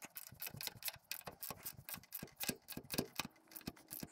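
Ratcheting wrench clicking in quick, irregular runs of light ticks as a bolt on a lawn-mower deck's striping kit bracket is tightened down.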